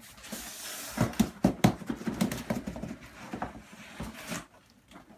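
A cardboard shipping box being opened and handled by hand: scraping and rustling of cardboard, then a run of sharp knocks and taps as the flaps and the box inside are moved, thinning out near the end.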